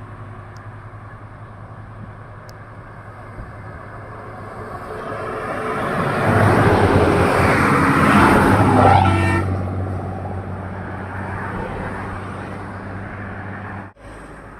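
Hino coach bus passing close at highway speed: its engine and tyre noise build as it approaches, peak as it goes by, and drop in pitch as it pulls away.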